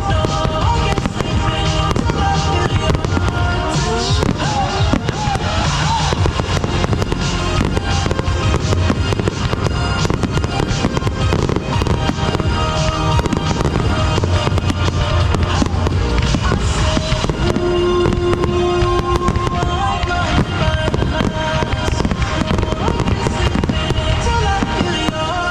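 Fireworks display: dense, rapid bangs and crackling go on without a break, over loud music.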